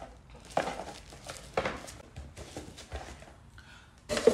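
A belt and its cardboard gift box being handled: soft rustling with a few short knocks and clicks, ending in a louder knock near the end.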